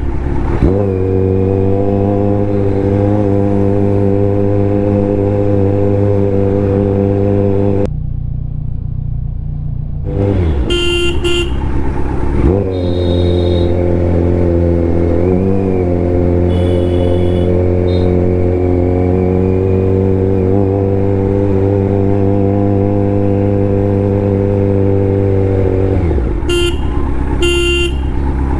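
Kawasaki Z900 inline-four motorcycle engine idling steadily in stopped traffic, muffled for a couple of seconds about eight seconds in, while other vehicles' horns give short honks several times.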